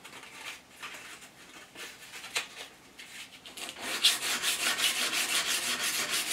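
Hand abrading the keyway of a high-tensile steel lathe tailstock shaft to dress off bruising and pick-ups. A few scattered light strokes are followed, from about four seconds in, by quick, steady back-and-forth rubbing strokes.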